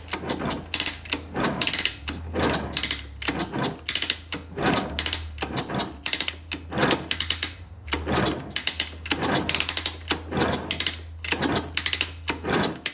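MBK X-Limit's 50cc two-stroke engine (Minarelli AM6) turned over again and again on the kick-starter without starting, each stroke a harsh mechanical clatter, nearly two a second. These are the "bruits plutôt chelous" that the owner puts down to piston rings stuck after years in a barn, and perhaps a damaged piston and cylinder from running without a radiator.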